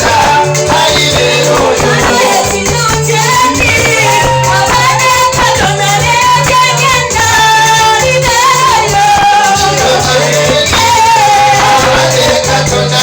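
Loud praise music: voices singing a melody over a band with a shaker and a pulsing bass line.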